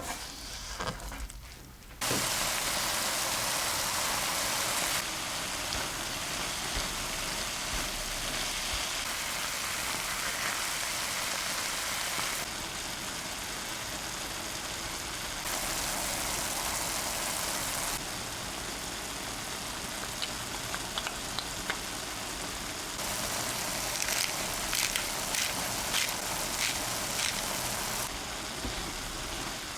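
Food sizzling in hot oil in a frying pan: a steady hiss made of several spliced takes that each start and stop abruptly, with scattered sharp pops and crackles in the last third.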